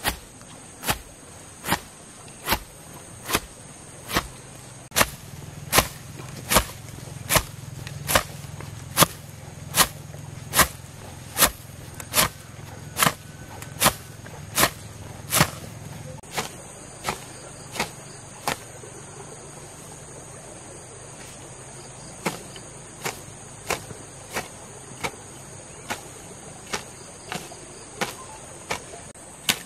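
Hand hoe chopping into grassy soil with a sharp strike a little more than once a second, pausing for a few seconds past the middle before going on. A steady high insect trill sounds underneath.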